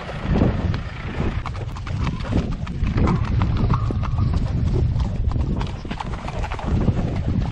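A ridden horse's hooves clip-clopping at a brisk gait, heard close from the saddle, as it moves from a tarmac lane onto a muddy dirt track.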